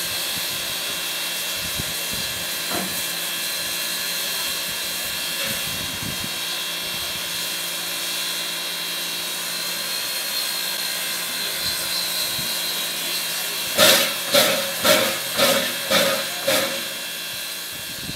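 Steam locomotive standing with steam hissing steadily. Near the end, six loud sharp beats come about two a second.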